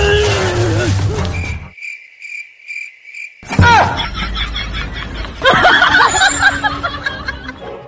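A man's drawn-out groaning cry cuts off about a second and a half in. A cricket-chirp sound effect follows, repeating about two or three times a second over dead silence for nearly two seconds: the comic 'awkward silence' gag. Men's voices and a falling swoosh then take over.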